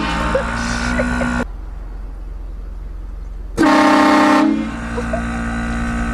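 Car-mounted train horn sounding: a held chord of several notes for the first second and a half, then a loud, short blast about three and a half seconds in.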